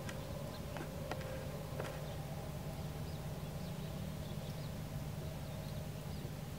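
Outdoor background with a steady low hum, a few sharp clicks in the first two seconds, and faint, short high chirps.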